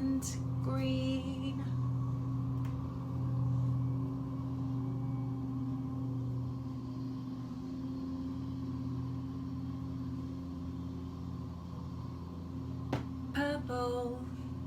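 A steady low mechanical hum, with short bits of a voice just after the start and again near the end.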